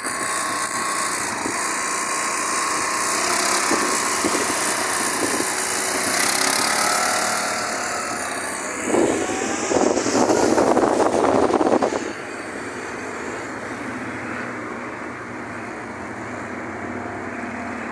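Motorcycle engine running close by amid street noise, loudest for a few seconds just before it cuts off abruptly about twelve seconds in, leaving a quieter, steady noise.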